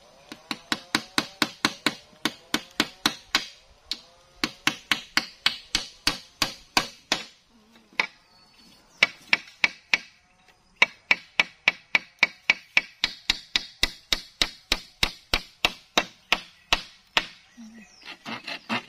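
Hammering something in to fasten it: a long run of sharp, evenly paced blows, about three or four a second, pausing briefly twice and stopping near the end.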